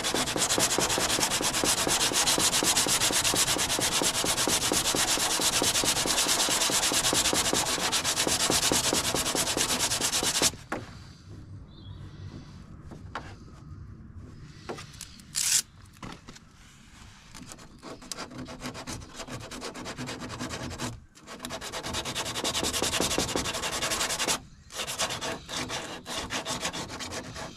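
Hand sanding of filler on a fibreglass car bumper with 80-grit paper on a sanding block: fast back-and-forth scratchy strokes for about ten seconds. A quieter stretch with only the odd light stroke follows, then another spell of fast strokes about three-quarters of the way through.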